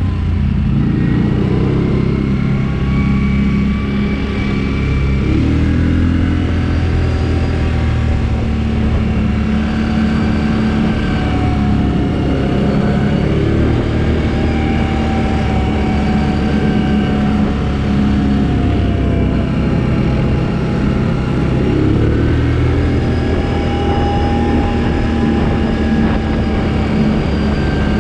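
Quad bike (ATV) engine running under way. Its note rises and falls gently as the speed changes.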